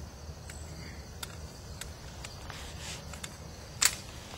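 A few faint clicks and one sharper click near the end, over a steady low rumble of outdoor background noise.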